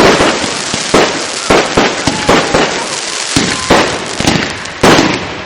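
Aerial fireworks shells bursting in quick succession, about ten loud bangs, with a continuous crackle and hiss between them.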